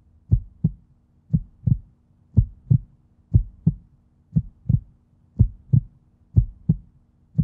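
Heartbeat sound effect: paired low thumps, lub-dub, repeating about once a second.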